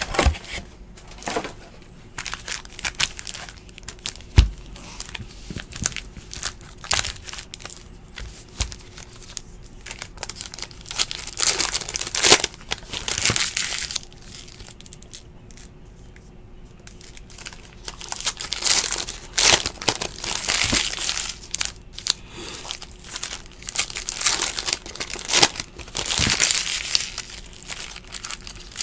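Foil wrappers of Donruss basketball card packs crinkling and tearing as they are ripped open, with cards shuffled by hand. The noise comes in irregular bursts, with a quieter stretch near the middle. A faint steady hum runs underneath.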